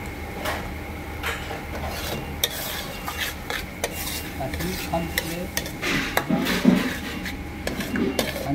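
Kitchen utensils stirring, scraping and clinking against metal pans and bowls, as a run of irregular clicks and knocks over a steady low hum; it grows busier about halfway through.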